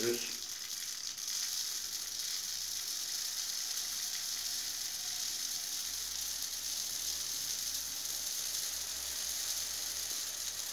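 Bird seed pouring from a plastic bag into a PET-bottle feeder: a steady, even hiss of small grains trickling in.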